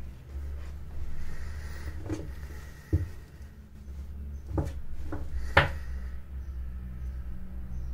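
A lightweight waterproof running jacket being handled, folded and squeezed into a bundle on a table: fabric rustle with about five short knocks and taps, the sharpest a little past halfway.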